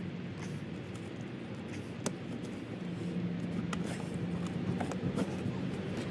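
Small handling noises as a rubber hose is worked off a metal pipe nipple on a Honda Navi's engine, with one sharp click about two seconds in and a few fainter ones later, over a steady low hum.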